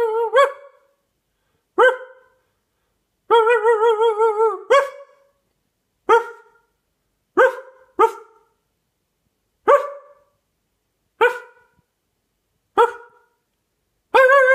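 A dog barking: single sharp barks roughly every one and a half seconds, about eight in all. There is a longer drawn-out cry of wavering pitch between about three and five seconds in, and another starts near the end.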